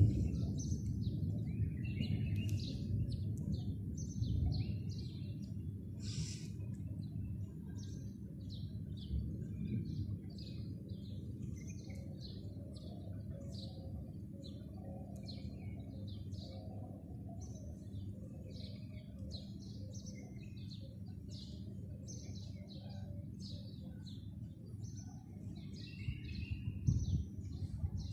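Many small birds chirping, short high chirps repeating several times a second, over a steady low rumble that swells a little near the end.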